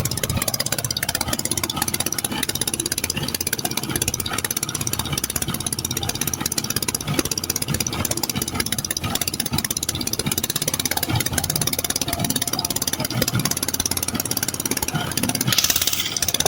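Motorboat engine running steadily with a fast, even firing beat, and a brief hiss near the end.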